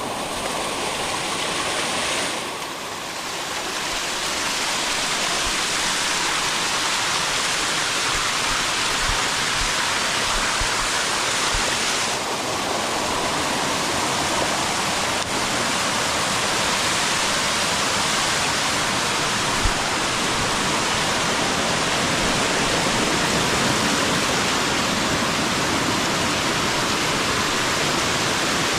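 Water rushing steadily down a waterfall over rock.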